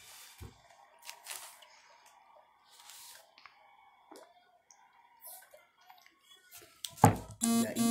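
Faint crunching, chewing and handling sounds of Doritos tortilla chips being eaten, scattered through the quiet. About seven seconds in comes a sharp knock, the loudest sound, followed by a brief voice.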